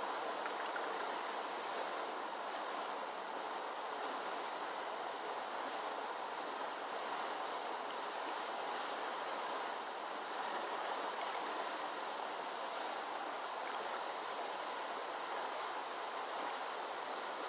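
Steady rushing of a flooded creek's water, an even hiss with no change in level.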